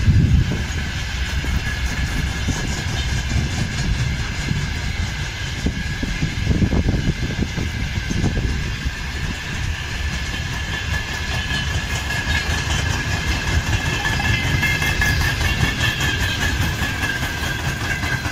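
Freight train wagons (open gondolas, then tank cars) rolling past: a steady rumble of wheels on rail, with a steady high-pitched ring over it.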